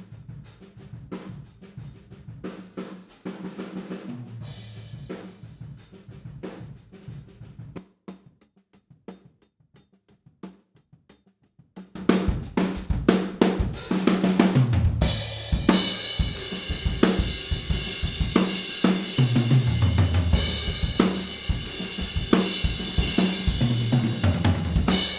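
Recorded acoustic drum kit playing a groove with kick drum, snare, hi-hat and cymbals. It sounds thinner and moderate at first and drops to a quiet stretch about eight seconds in. From about twelve seconds in it comes back full and much louder.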